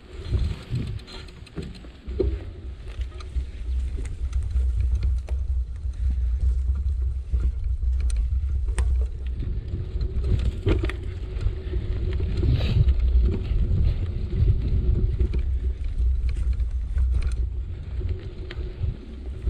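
Riding a bicycle: a steady low rumble of wind on the microphone and tyres on the path, with scattered small knocks and rattles.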